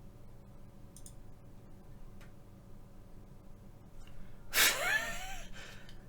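A person lets out one loud, breathy, voiced sigh about four and a half seconds in, over quiet room tone with a few faint clicks.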